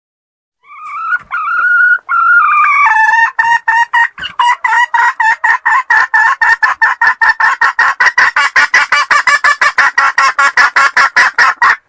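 Wild junglefowl hen calling: two drawn-out, wavering calls, then a long, fast run of clucks at about five a second.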